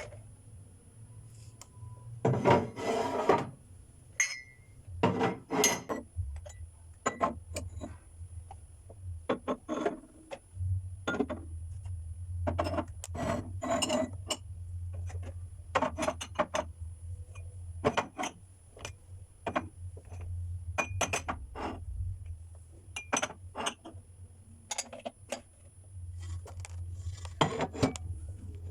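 Irregular knocks, clinks and rubbing of household objects being handled, over a steady low hum.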